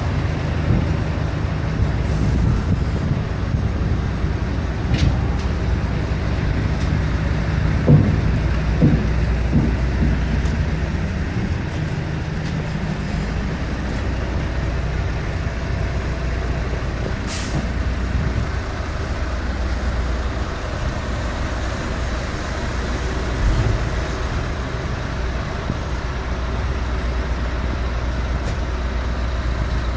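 Diesel engine of a grab lorry running steadily, with a couple of short hisses and a thud.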